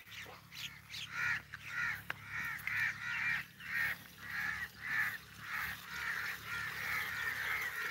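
A bird calling over and over: a steady run of short calls, about two a second, starting about a second in.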